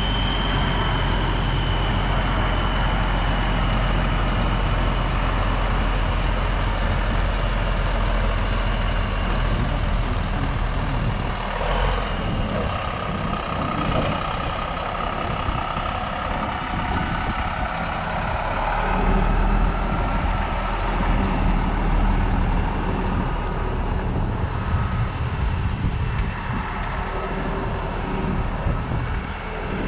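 Semi truck's diesel engine running steadily at low revs while towing a long boat trailer.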